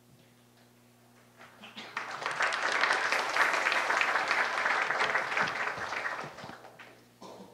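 Audience applauding. The clapping builds about a second and a half in, holds, and dies away about a second before the end.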